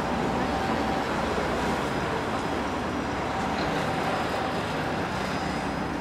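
Steady city traffic noise, engines and tyres blending into an even wash.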